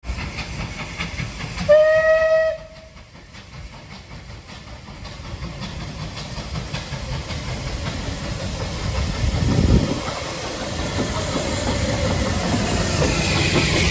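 Bulleid West Country class steam locomotive 34092 City of Wells sounds its whistle once, briefly, about two seconds in. Then the steam hiss, exhaust and rolling noise of the locomotive and its train grow steadily louder as it draws near.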